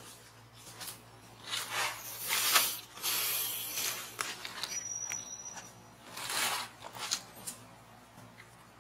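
Dry fallen leaves and twigs rustling and crackling in irregular bursts, from about a second and a half to four seconds in and again near six to seven seconds, as a baby macaque crawls and fumbles among them. A brief high, thin whistle sounds about halfway through.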